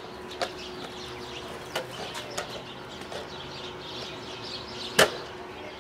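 Skateboard on Slimeball urethane wheels rolling along a concrete sidewalk, a steady rolling hiss broken by sharp clacks as the wheels cross the sidewalk joints, the loudest about five seconds in.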